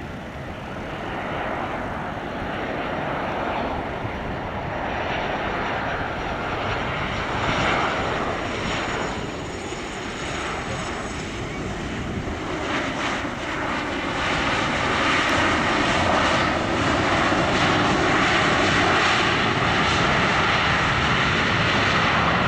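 Jet engines of a Boeing 737-800 (CFM56-7B turbofans) on a landing pass: a steady jet rush with faint whistling tones. It grows louder and is at its loudest for the last eight seconds or so.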